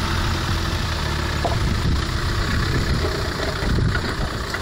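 Land Rover Discovery's engine running at low revs as the 4x4 creeps over rough ground, a steady low hum that eases a little after the first couple of seconds.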